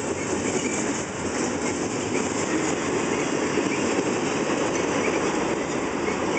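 Intermodal freight train cars rolling past: a steady noise of steel wheels on rail, with brief faint squeals now and then.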